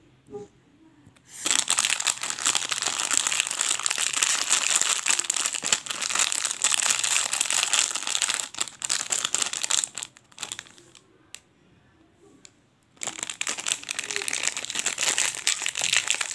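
Plastic snack packet crinkling as hands squeeze and twist it. The crinkling starts about a second and a half in, dies down to a few faint clicks for about three seconds past the middle, then comes back.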